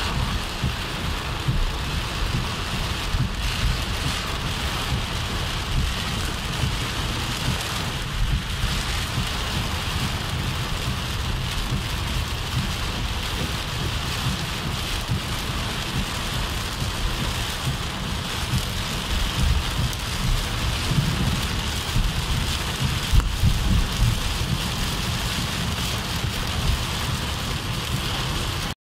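Heavy rain hitting a car's roof and windscreen, heard from inside the car as a dense steady hiss, with a steady low rumble underneath.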